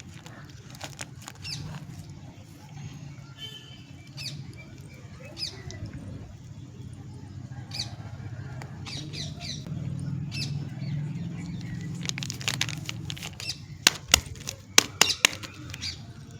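Soap wrappers being handled and opened by hand: scattered rustling and crinkling of paper and plastic, with a cluster of loud, sharp crackles near the end.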